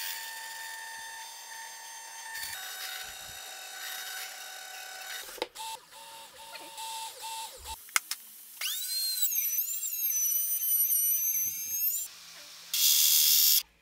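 A run of power-tool sounds: a drill press running with a steady whine as its bit bores into plywood, then an electric router spinning up to a steady high whine, and near the end a short, loud burst of cutting noise.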